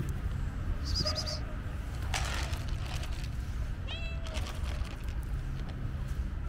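Stray cats meowing while crowding for food: a short meow about a second in and a clearer, falling meow about four seconds in, with a brief rush of noise between them.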